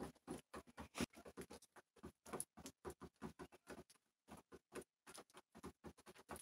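Pigeons pecking grain off a wooden board: a quick, irregular run of faint taps, several a second, with a short pause about four seconds in.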